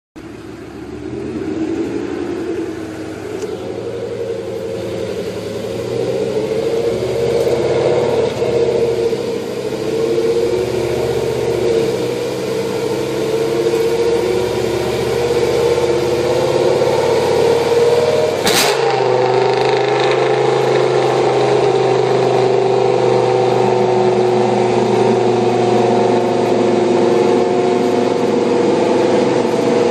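G-Power-tuned BMW M5 engine running, its note building in loudness over the first several seconds. About two-thirds of the way through there is one sharp crack, after which the engine note holds steady.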